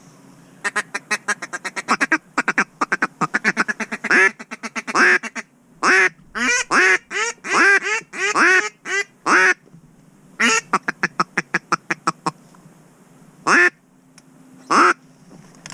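Duck quacking, loud and close: a fast run of short quacks, then a series of longer quacks that each fall in pitch, and a few single quacks near the end.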